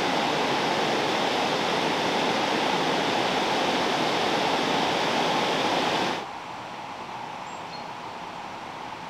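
Water rushing over a weir: a loud, steady rush that cuts off abruptly about six seconds in, leaving a quieter, steady flow of river water.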